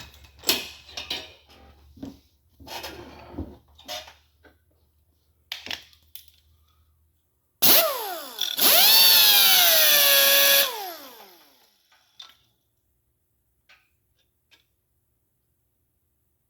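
Scattered taps and clicks of hand tools, then a power drill runs for about two seconds as it drills a pin hole in the cast-iron block of a 331 Hemi for crack repair. Its pitch dips and rises under load, then falls away as the trigger is released.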